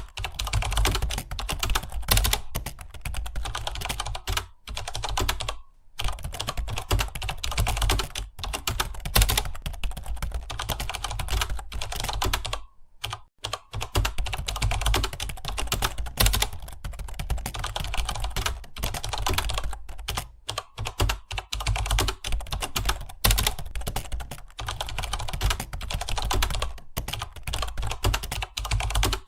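Rapid, continuous typing on computer keyboards, keys clicking densely, with brief pauses about 6 and 13 seconds in.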